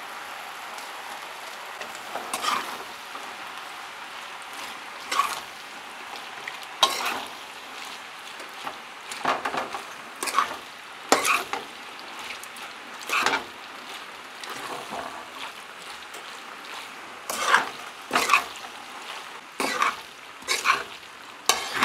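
Metal spoon stirring and scraping through elbow macaroni and chicken in a hot frying pan, over a steady sizzle. The scrapes come irregularly, about one every second or so.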